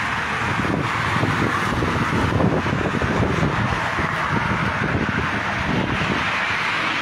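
Street noise from traffic going by, with wind buffeting the phone's microphone; steady, swelling slightly a few seconds in.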